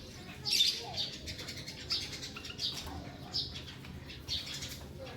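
Small cage birds, a female canary and a male white-headed munia housed together, giving short high chirps about once or twice a second.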